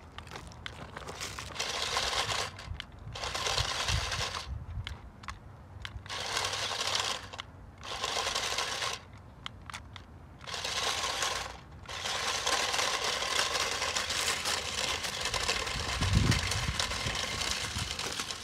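JJRC Q69 six-wheel RC crawler's small electric drive motors whirring as it climbs over loose rock, stones crunching and rattling under its tyres. The throttle goes on and off in about six short bursts, then is held steadily for roughly the last six seconds.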